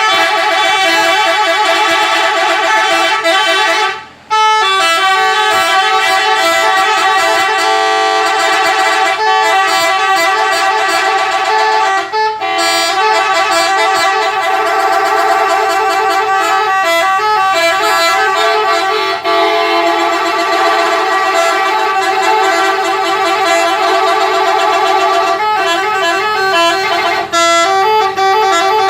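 Bus 'telolet' musical air horns sounding a tune, several tones together stepping from one pitch to the next, nearly without pause; a short break comes about four seconds in.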